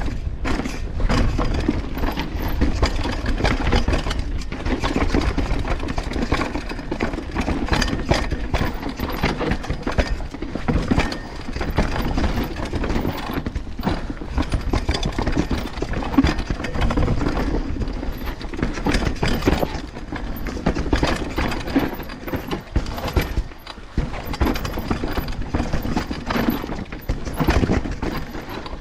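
Banshee Legend downhill mountain bike descending a rocky trail: tyres rumbling over stones and dirt with a constant irregular clatter of knocks from the bike. Part of the clatter is the chain rattling, which the rider puts down to a chain that is too short.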